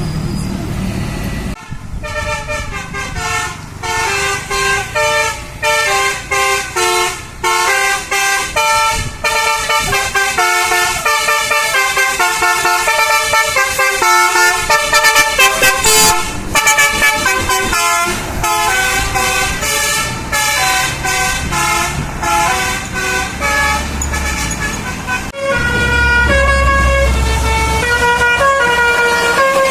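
Bus 'telolet' horn, a multi-tone air horn, playing a fast tune of changing notes that starts about a second and a half in. The bus engine runs low underneath and grows louder for the last few seconds.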